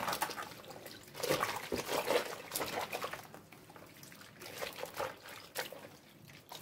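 Water splashing and sloshing as a T-shirt is hand-rinsed in a plastic basin: the fabric is swished, squeezed and lifted, with irregular splashes that are busiest in the first three seconds and then softer.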